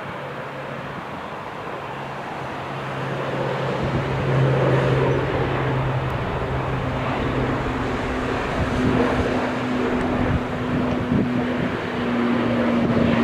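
ATR twin-turboprop airliner climbing out overhead: a steady drone of turboprop engines and propellers that grows louder about four seconds in. Its low propeller hum gives way to a higher hum in the second half.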